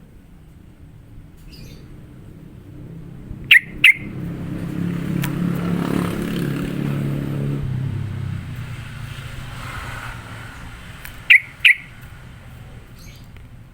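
Yellow-vented bulbul (trucukan) giving two sharp double-note calls, one pair about three and a half seconds in and another near the end. A vehicle passes in the background, swelling and fading between the calls.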